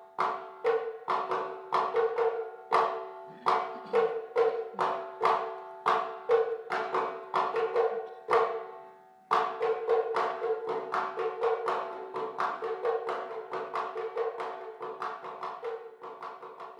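Background music: a percussive piece of quick, evenly repeated struck notes over a held tone, with a brief pause about halfway through.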